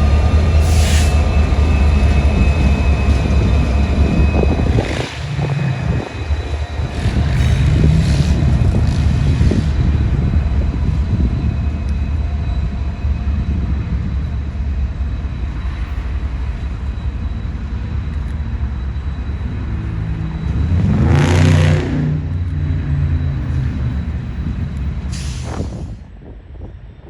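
Train passing, with a heavy engine running low and steady under several short bursts of hiss; the sound drops away sharply near the end.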